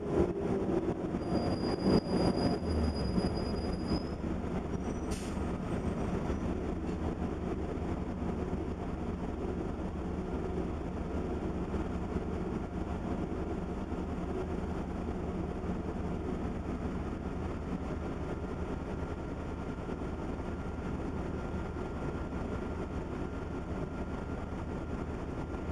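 Interior of a 1998 New Flyer D30LF diesel transit bus underway: a steady engine and road rumble, louder for the first few seconds. A thin high tone sounds briefly near the start, and a faint steady whine runs through the second half.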